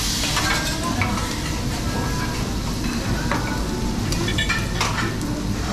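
Food sizzling on a flat steel teppanyaki griddle, with a metal spatula scraping and clicking against the hot plate several times.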